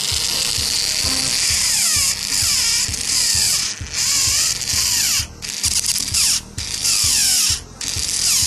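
Small battery motor and plastic gearbox of a Plarail toy locomotive whirring at speed, stopping briefly and starting again several times.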